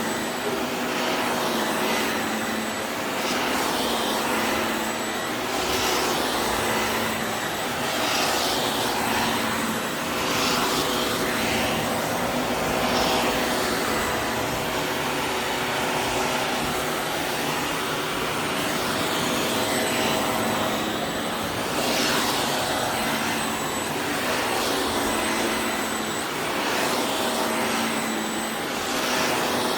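Vacuum cleaner running steadily with a motor hum, its sound swelling and easing every two to three seconds as it is pushed back and forth.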